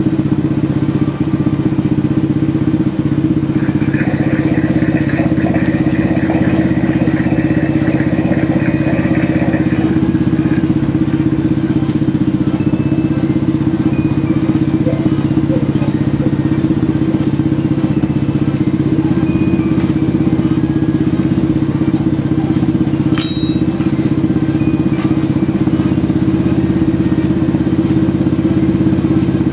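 Honda Supra X's four-stroke single-cylinder engine running steadily after a rebuild with a new crankshaft, crank bearings and piston, run to check whether its rough, noisy sound has gone. A higher whine joins for a few seconds about four seconds in, and there is a single sharp click a little past the two-thirds mark.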